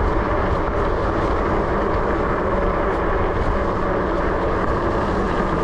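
Steady rushing wind and riding noise from a Dirwin Pioneer fat-tire electric bike moving at about 23 mph.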